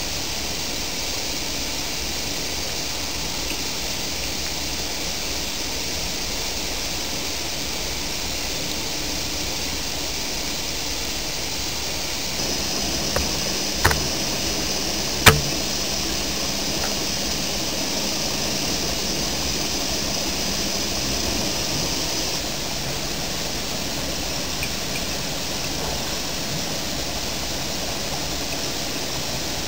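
A steady rushing hiss, like moving air. A low hum joins it for about ten seconds in the middle, and two sharp clicks come close together about halfway through, the second one louder.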